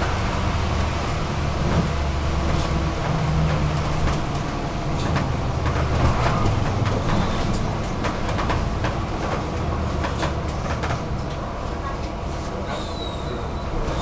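Inside a moving city bus: steady engine and road noise, the engine note shifting in the first few seconds, with frequent small rattles and clicks from the cabin and a brief high squeak near the end.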